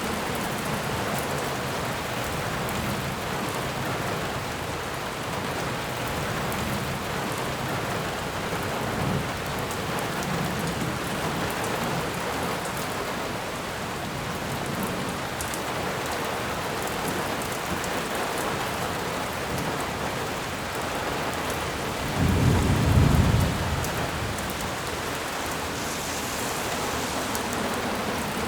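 Steady rain falling, an even hiss of drops throughout. Late on, a low rumble of thunder swells for about two seconds and is the loudest sound.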